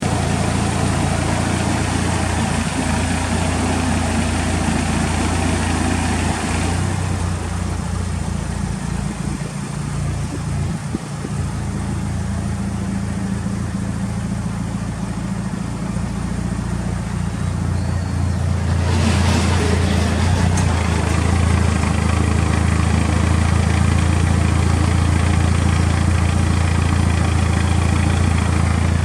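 Mitsubishi Lancer Evolution VI GSR's turbocharged four-cylinder engine idling steadily through an aftermarket muffler, with no revving. It sounds a little louder and brighter from about two-thirds of the way through.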